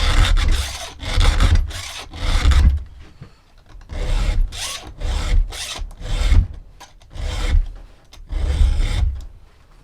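Hand file scraping across the cutters of a chainsaw chain: about nine rasping strokes roughly a second apart, each with a dull knock, with a short pause about three seconds in.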